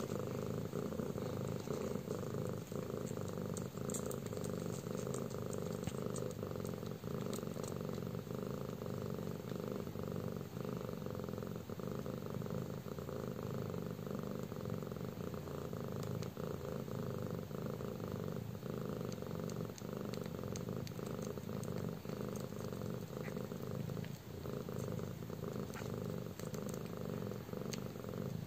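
Cat purring steadily and without a break: a mother cat nursing her newborn kittens, a sign of contentment.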